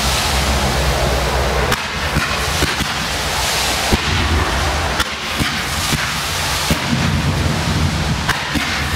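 Fireworks going off: a dense, rain-like crackling hiss over a low rumble, with a few sharp bangs about two, four, five, seven and eight and a half seconds in.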